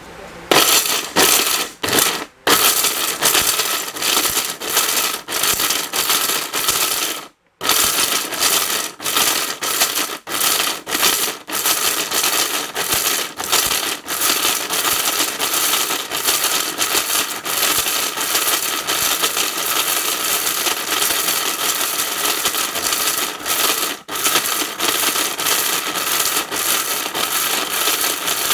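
Orange 1000-watt blender with a copper-wound motor running at speed, grinding hard pieces of dried turmeric that rattle against the blades and the stainless steel jar. It is run in pulses: the noise breaks off briefly many times and stops fully for a moment about seven seconds in.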